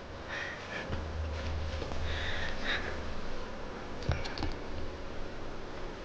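Soft sniffing sounds, with a single light knock about four seconds in.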